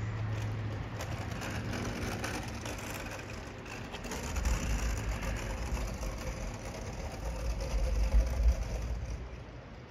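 Road traffic: a vehicle's engine and tyres rumbling on a nearby road, swelling from about four seconds in and fading near the end.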